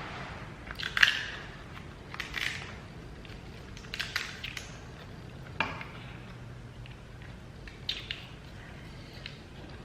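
King crab leg shells being cracked and picked apart for the meat: a series of short, sharp cracks and clicks a second or two apart.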